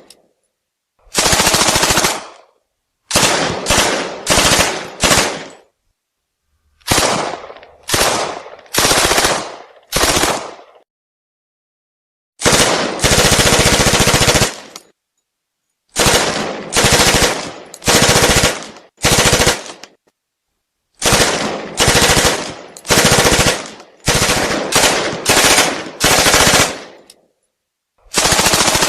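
Thompson submachine gun firing on full automatic in about twenty short bursts, most under a second, with one longer burst of about two seconds near the middle, separated by silent gaps.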